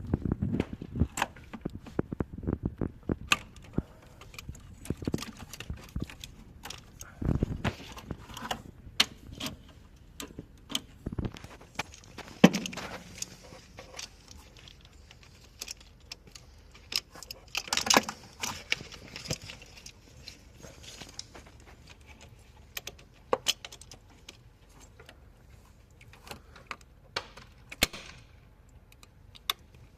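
Irregular metallic clinks, taps and knocks of hand tools and parts being handled, with no engine running. The loudest is a single clank about twelve seconds in that rings briefly, and a busier cluster of rattling clinks follows around eighteen seconds.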